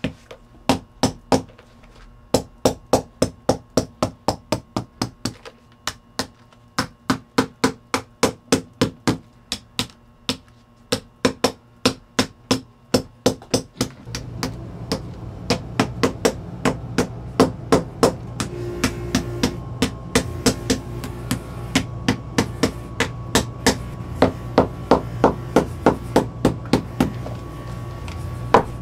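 Shoemaker's hammer tapping in quick, even runs of about three sharp strikes a second, with brief pauses between runs. About halfway through, a steady machine hum starts underneath.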